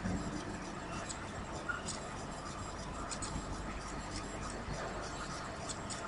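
Faint steady background noise of the recording: a hiss with a low hum and a few faint ticks.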